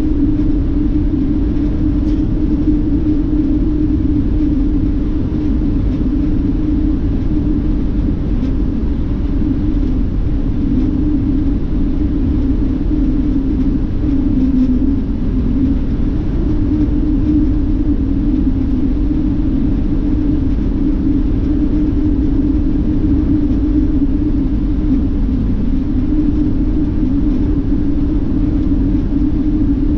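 Steady interior rumble of a highway coach bus cruising, engine drone and tyre and road noise heard from inside the cabin, with a strong low hum throughout.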